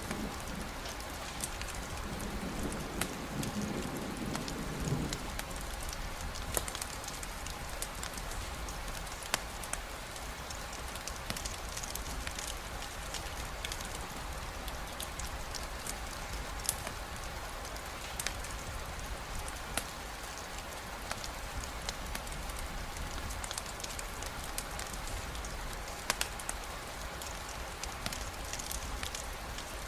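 Steady rain with a campfire crackling, scattered sharp pops and drips over the even hiss. A low rumble sounds in the first few seconds and then stops.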